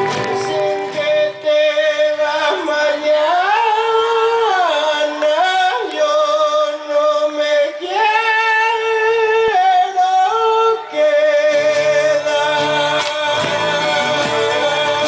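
A solo singer holds long, gliding notes of a folk song with almost no accompaniment, then the band's low accompaniment comes back in near the end.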